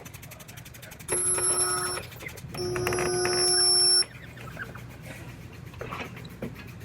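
A body-shop power tool whining at a steady pitch in two bursts, the first about a second long and the second about one and a half seconds, each cutting off sharply.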